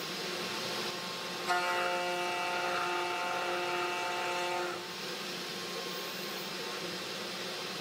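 Desktop CNC router's spindle running while a two-flute end mill cuts an acrylic bar. A steady whine of several tones sets in suddenly about a second and a half in and stops near five seconds, as one milling pass runs and ends.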